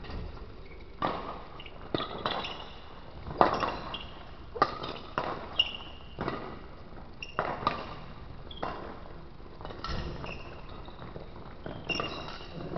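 Badminton rackets striking a shuttlecock back and forth in a rally: a dozen or so sharp hits at uneven spacing, roughly one a second. Short high squeaks, typical of court shoes on the floor, come between some of the hits.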